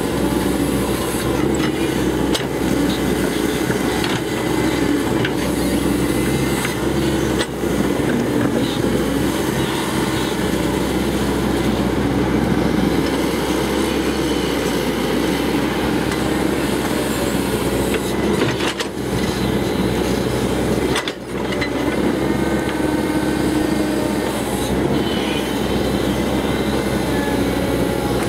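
Cat 312C hydraulic excavator working: its diesel engine runs steadily under load, with occasional metal knocks and clanks from the machine and bucket.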